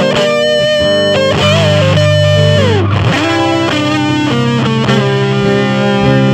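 Electric guitar played through the Blackstrap Bartleby Buzzaround, a germanium-transistor fuzz pedal built around NKT-213 transistors: held, fuzzed lead notes with slight bends, and a slide down in pitch a little before halfway through.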